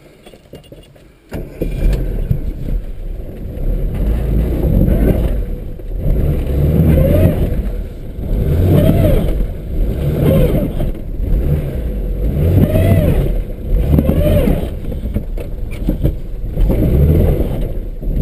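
ZAZ Tavria car engine revved hard over and over, rising and falling in pitch about every two seconds, starting about a second in. The car is stuck in mud with one wheel chain fitted, and the drive wheel is just spinning without getting traction.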